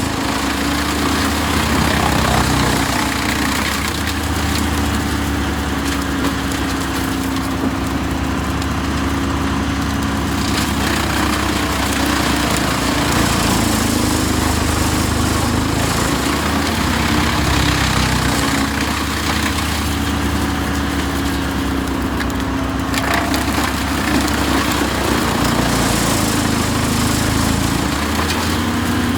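Engine-driven wood chipper running steadily under load, with the crackle and splintering of wood being chipped over its engine hum.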